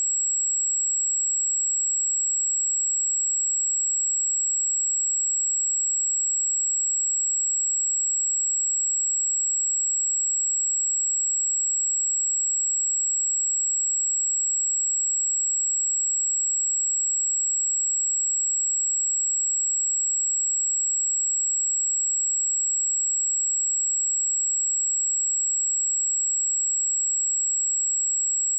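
A pure 7685 Hz sine-wave test tone: one steady, high-pitched whistle held at constant pitch and level.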